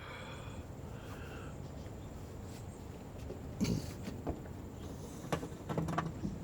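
A few sharp knocks and clicks over a steady background hiss, the loudest about halfway through and a cluster near the end.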